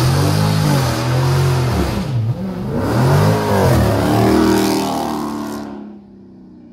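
Car engine revved hard several times, its pitch climbing and falling, over a loud rushing hiss. It all drops away about a second before the end.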